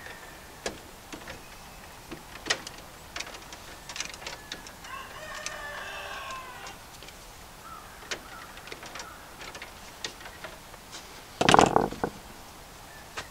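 Scattered light clicks and taps of hand work on wiring in a breaker panel. A rooster crows about five seconds in, and near the end comes one loud clatter lasting under a second.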